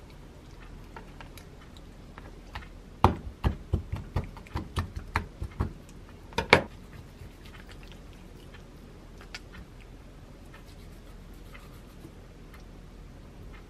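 Tip of a kitchen knife jabbed repeatedly through raw chicken thigh skin onto a wooden cutting board, scoring the skin: a run of about nine quick knocks over two and a half seconds, then one louder knock a second later. Otherwise only faint knife and board clicks.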